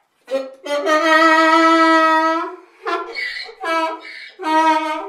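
Donkey braying: one long drawn-out note, then a run of quick hee-haw calls that alternate between breathy in-breaths and pitched out-breaths.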